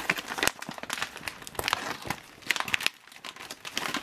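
Plastic MRE meal bag crinkling in the hands and being torn open at its tear notch: a steady run of irregular crinkles and crackles.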